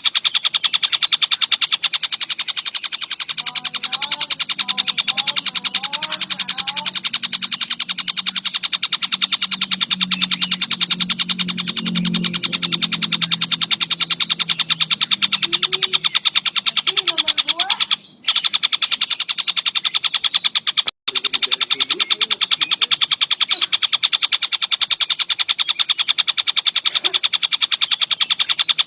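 Collared kingfisher (tengkek buto) calling in an unbroken, very rapid chattering trill, with two brief breaks about 18 and 21 seconds in. A fainter low hum and a few softer gliding chirps sit beneath it for part of the time.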